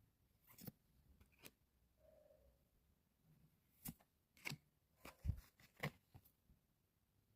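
Faint handling of trading cards and their packaging: a handful of soft clicks and rustles, most of them about four to six seconds in.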